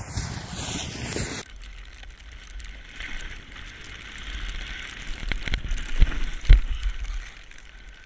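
Snowboard sliding and scraping over snow, with wind buffeting the microphone. Two heavy thumps come about six seconds in.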